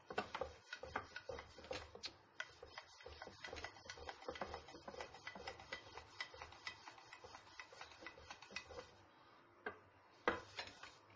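Long thin wooden rolling pin (oklava) rolling out lavash dough on a floured glass tray, making rapid, uneven clicks and taps of wood on glass. The tapping pauses briefly, then comes one sharper knock near the end.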